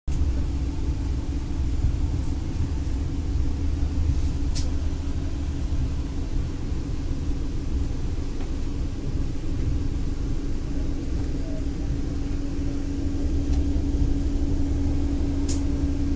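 Vande Bharat electric train set heard from inside the coach, running slowly with a steady low rumble and a constant hum. Two faint clicks come about four and a half seconds in and near the end.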